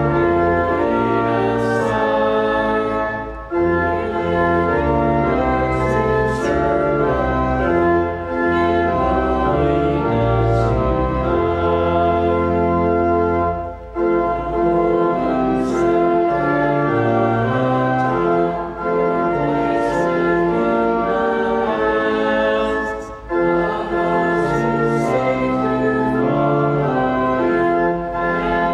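Church organ playing a hymn in held chords that change step by step, with short breaks between phrases.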